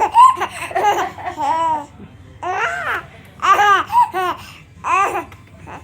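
High-pitched hearty laughter: an unbroken run for the first couple of seconds, then several separate bursts of laughing.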